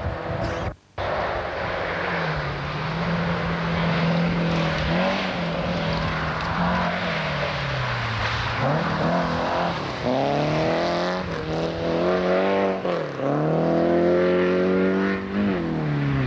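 Rally car engine at full throttle on a gravel stage, its pitch climbing and dropping again and again as the driver works through the gears and lifts for the bend. It revs hardest in the last several seconds. The sound cuts out briefly about a second in.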